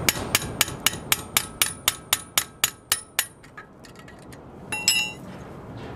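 Hammer tapping a screwdriver driven under an old bushing in a truck drum-brake housing, about a dozen sharp metallic strikes at roughly four a second, to knock the bushing out. A single ringing metal clink follows about five seconds in.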